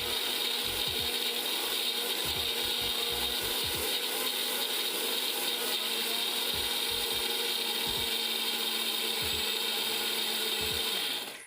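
Electric mixer grinder running steadily, grinding a wet paste of coriander, chillies and peanuts for green chutney, with a constant motor hum; it stops just before the end.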